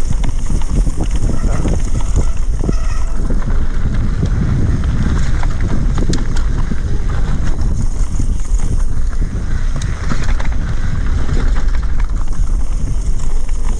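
Wind rushing over the microphone on a fast mountain-bike descent, with the tyres rumbling on the dirt trail and the bike clattering and rattling over roots and bumps.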